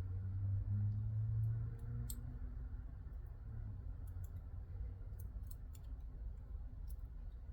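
Small, sharp metallic clicks and ticks, spaced irregularly, as pin-tumbler padlock parts (pins, springs, plug) are handled and fitted back together.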